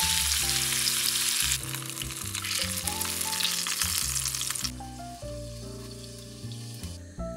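Food sizzling in hot oil in a frying pan, over background music. The sizzling drops away about two-thirds of the way through, leaving the music.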